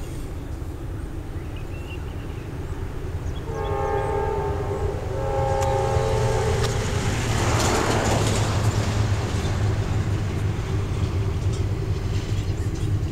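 Air horn of the approaching CSX freight's lead locomotive, a GE CW44AC diesel-electric, sounding a multi-note chord in two blasts, the first about three and a half seconds in. After the horn, the low rumble of the oncoming train grows steadily louder.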